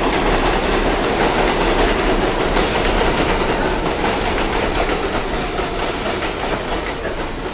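R62A subway train rolling on an elevated steel track and slowing as it comes into the station: a steady rumble of wheels on rail with some clatter, slowly getting quieter.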